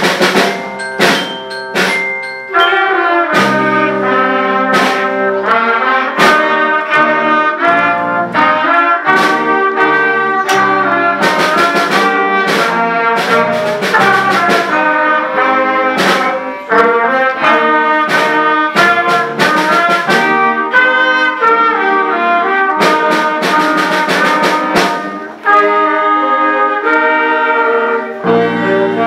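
A children's school concert band playing a piece together: flutes, clarinets, saxophone and trombone carry the melody and harmony over a steady percussion beat.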